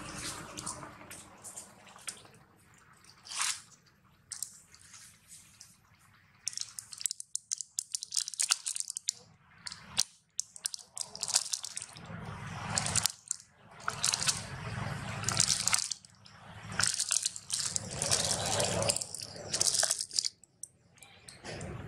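An adult macaque grooming a baby's fur close to the microphone: rustling and irregular bursts of small wet clicks and crackles, with short pauses between bursts.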